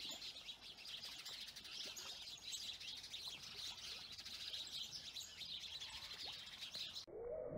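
Faint chorus of birds chirping and tweeting, many short high calls overlapping. Near the end it cuts abruptly to a lower, wavering sound.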